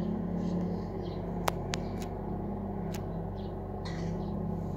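Steady low rumble and hum of distant traffic, with two sharp clicks about a second and a half apart.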